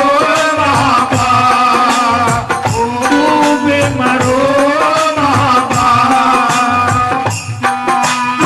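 Instrumental break in a folk devotional song: a melody instrument plays a wavering, gliding tune over steady hand-drum percussion.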